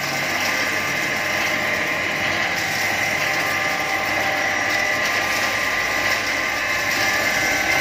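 Electric-motor-driven combined corn sheller and corn flour mill running steadily, a constant machine hum with a high steady whine over it.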